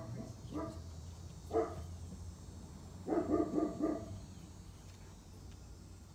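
A dog barking in short bursts: single barks about half a second and a second and a half in, then a quick run of four barks around three seconds in, over a low steady hum.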